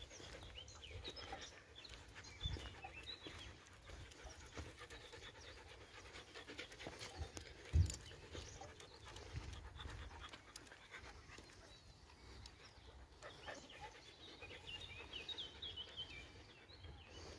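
A dog panting, tired from a long walk in the heat, with faint footfalls and low bumps throughout; one louder thump about halfway through.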